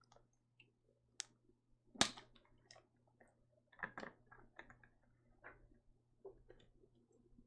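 A few scattered soft clicks and small knocks, the loudest about two seconds in and a short cluster around four seconds, over a faint steady low hum.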